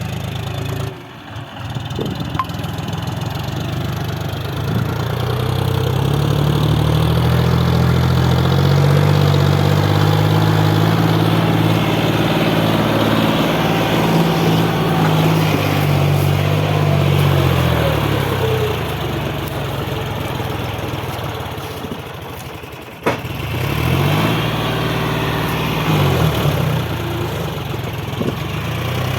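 Diesel engine of a JCB 3DX backhoe loader at work, revving up about five seconds in and holding high revs for over ten seconds before dropping back. Near the end a sharp knock, then the engine revs up and down twice.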